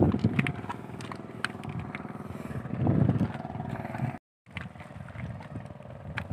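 A small engine running steadily, with scattered clicks and knocks over it; the sound cuts out for a moment a little past the middle.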